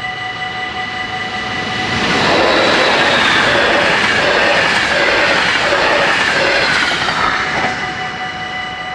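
NS double-deck electric passenger train passing over the level crossing: a loud rush of wheel and rail noise from about two seconds in until about seven and a half, with a whine that slowly falls in pitch as it goes by. Under it, the crossing's warning bells ring steadily throughout.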